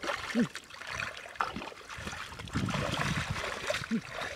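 Shallow muddy water splashing and sloshing as a person works in it by hand and wades barefoot through it, with a sharper splash about half a second in.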